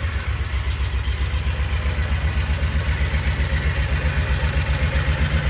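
Kawasaki Mule 4010's liquid-cooled V-twin engine idling in steady low pulses with a dead miss: one cylinder has stopped firing and the engine is running on the other.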